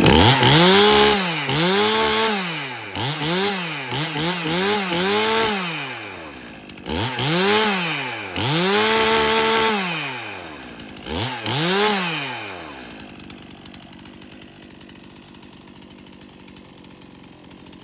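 Stihl MS 291 Farm Boss two-stroke chainsaw revved in repeated throttle blips, each rising and falling in pitch, in quick succession at first and then a few more spaced apart. About two-thirds of the way through it drops back to a much quieter steady running. The saw is running pretty good.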